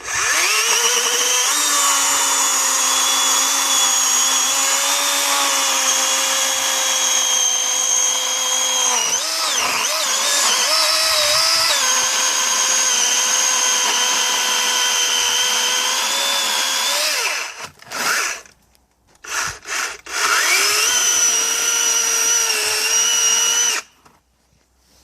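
Greenworks 80V brushless battery chainsaw running with a steady electric whine. Its pitch dips and wavers for a few seconds around ten seconds in, as under cutting load. It stops about seventeen seconds in, is blipped twice briefly, then runs again for a few seconds and stops.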